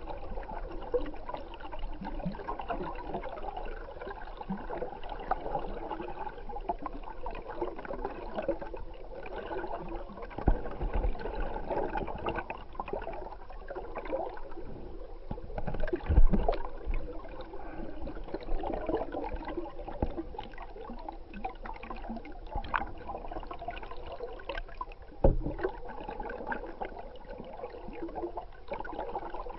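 Water sound picked up by an underwater camera: a steady wash of moving stream water, with a few low knocks, the loudest about 16 seconds in.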